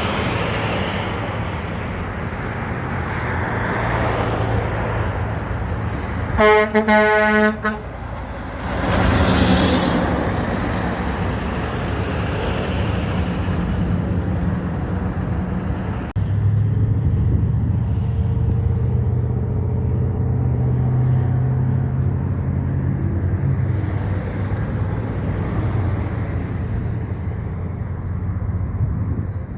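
Heavy trucks' engines running past, with a truck horn blown in a quick series of short blasts about six seconds in, followed by a loud rush of a truck going by. From about the middle on, a truck engine drones steadily at a low pitch.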